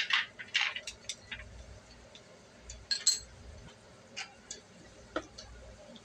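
Scattered small plastic clicks and clinks of hands handling the ignition switch's wiring and plastic plug connector on a GY6 50cc scooter, irregular, with a quick cluster in the first second and single clicks later on.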